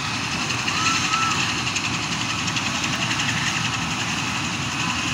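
Ambulance helicopter running on the ground: a steady high turbine whine over the rumble of its engines and rotor.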